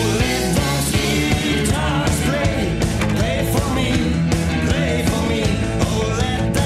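Background music: a rock song with singing over a steady drum beat.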